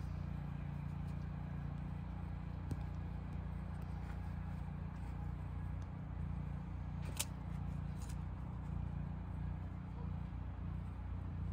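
Steady low outdoor rumble, like distant traffic or wind on the microphone, with a few faint clicks; the sharpest click comes about seven seconds in.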